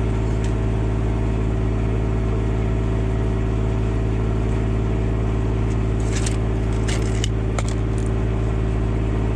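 Engine idling steadily, with a few light clicks or taps about six to seven and a half seconds in.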